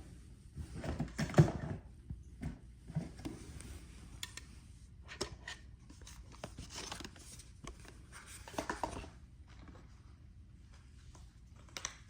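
Irregular rustling and handling noises from clothes being handled and loaded into a washing machine, with scattered clicks and light knocks. The loudest burst comes about a second and a half in.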